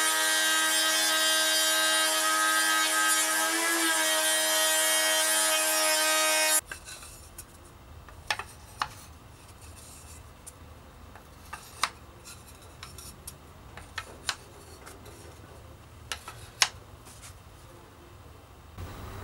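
Router on a router table running and cutting a groove along a wooden strip: a steady high motor whine with many overtones that shifts slightly in pitch about four seconds in, then cuts off abruptly. After that, a quieter stretch with scattered sharp wooden clicks as cut strips are set down on a table.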